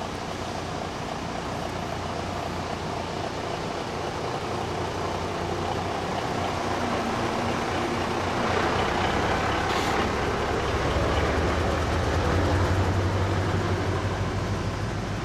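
Large diesel trucks of a road convoy moving slowly past at close range. Their low engine rumble builds as a big truck passes about eight seconds in, with a brief hiss near ten seconds.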